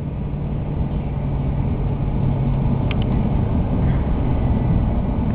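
Car engine and road noise heard from inside the cabin while driving uphill, a steady low rumble whose hum drops away about three seconds in.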